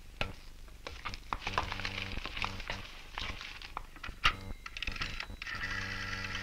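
Footsteps and clothing and handling clatter as a coat is hung up and a man sits down at a desk, then a sharp clack about four seconds in as a desk telephone's handset is picked up. Short bursts of a steady low electric buzz come and go, the longest near the end while the receiver is held to the ear.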